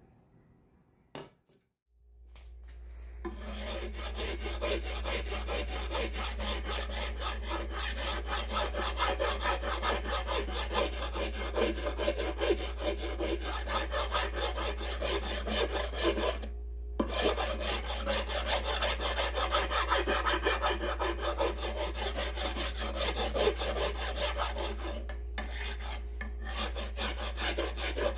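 Hand rasp filing down a new wooden axe handle to thin it: continuous rapid scraping strokes, with one short pause about two-thirds through. A couple of light knocks come before the rasping starts.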